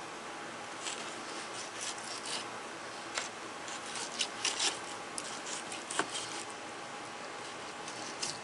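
Fillet knife skinning a Rio Grande cichlid fillet: short scraping strokes of the blade working between the tough skin and the cutting board, with a sharp tick about six seconds in, over a steady background hiss.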